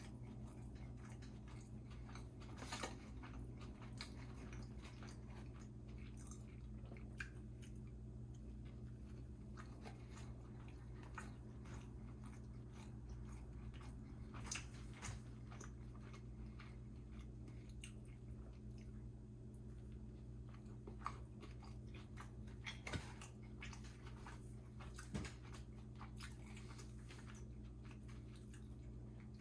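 A person chewing and biting fast food with mouth sounds and small irregular crunches, a few of them louder, over a steady low hum.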